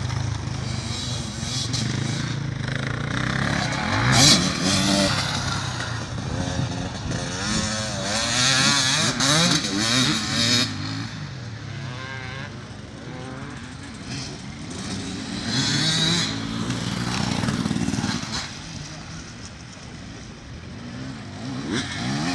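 Enduro dirt bikes riding a dirt track, engines revving up and down through the gears. The sound swells several times as bikes come close and fades as they ride off.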